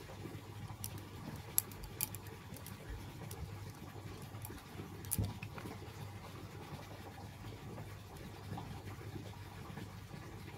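Hands handling and smoothing cloth on a table: soft rustling and scratching, with a few light clicks about one and a half, two and five seconds in, over a low steady hum.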